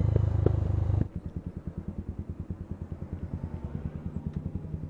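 A loud, steady low rumble for about a second, then a sudden drop to the Bajaj Pulsar 220's single-cylinder engine idling, an even pulse of about ten beats a second.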